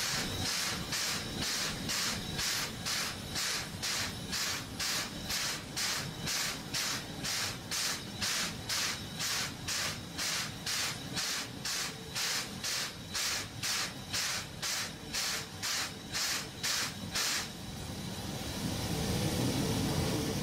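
Steam locomotive working, its exhaust chuffing in an even beat of about two and a half chuffs a second. The chuffs stop about seventeen seconds in, leaving a steady rumble with a faint hum.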